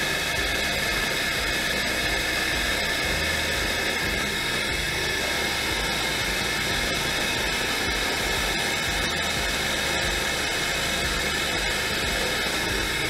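Drill press running steadily while a 3/4-inch Forstner bit bores a shallow hole into a wooden block, a constant rushing whir with no change in pitch. The sound may also include dust extraction drawing through the flexible hose aimed at the bit.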